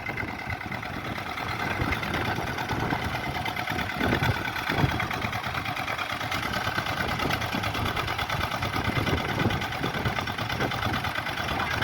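Swaraj 855 tractor's three-cylinder diesel engine running steadily.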